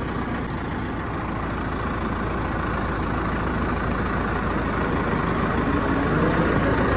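Farm tractor's diesel engine running steadily under way along a road, heard from on board the tractor, gradually growing louder.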